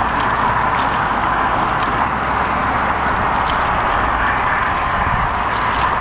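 Shallow water washing against shoreline rocks: a steady rushing noise with a few faint ticks.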